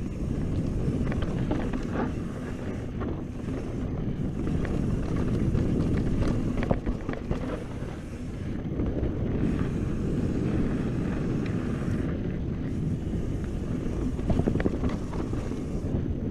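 Wind buffeting the microphone and mountain bike tyres rumbling over packed dirt singletrack on a fast descent, with scattered light clicks.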